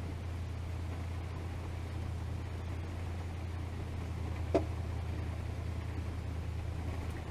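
Steady rain, heard from behind a rain-spattered window, over a low steady hum. A single sharp tap comes about four and a half seconds in.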